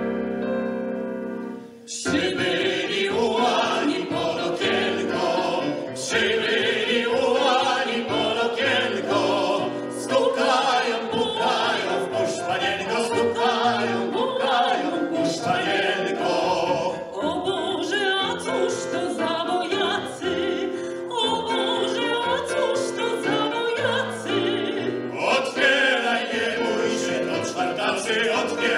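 A classical vocal quartet (tenor, two baritones and a soprano) singing a medley of Polish legion songs in harmony. A held chord breaks off about two seconds in, and the full group comes straight back in.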